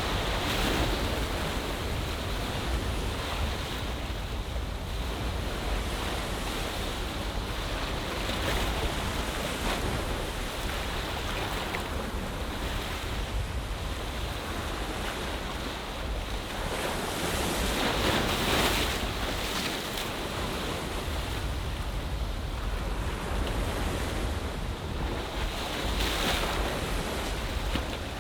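Ocean surf washing into a bay, a steady wash that swells with a breaking wave about every eight to nine seconds, under a low rumble of wind on the microphone.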